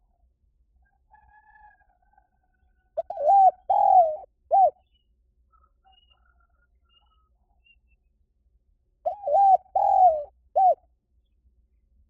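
Spotted dove cooing: two phrases about six seconds apart, each a few quick coos, one longer drawn-out coo, then a final short coo.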